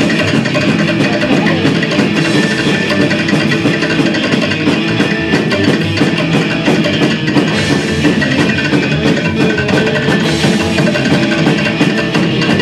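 Live psychobilly band playing an instrumental passage without vocals: electric guitar over a drum kit, loud and continuous.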